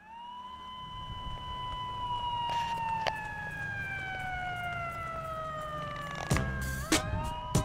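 Intro of a background music track: a siren-like tone rises at the start, then slides slowly downward for several seconds over a low steady bass. Sharp drum hits come in near the end, and a new higher tone starts.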